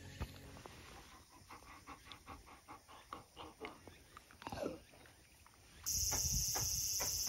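A German Shepherd panting, about three quick breaths a second, with a short falling tone near the middle. About six seconds in, insects start chirping, louder and steady.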